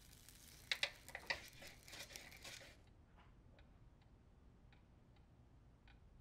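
Quiet room tone with a few faint clicks and rustles of handling in the first seconds. Then a clock ticking softly and steadily, a little under two ticks a second.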